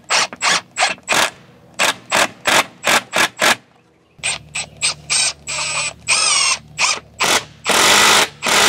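Cordless power drill driving screws into the wooden roost-ladder frame: a quick series of short bursts at first, then longer runs of the motor whine in the second half.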